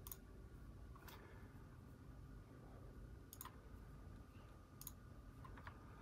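A few sharp, isolated clicks at a computer, over a faint steady hum; otherwise near silence.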